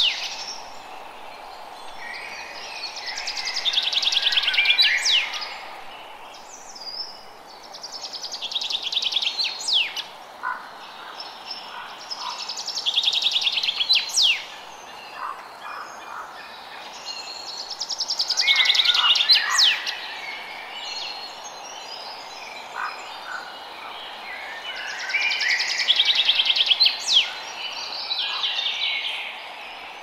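Forest ambience: a rapid pulsing trill in bouts of two to three seconds, repeating every five or six seconds, with birds' sharp rising whistles and short chirps, over a steady background hiss.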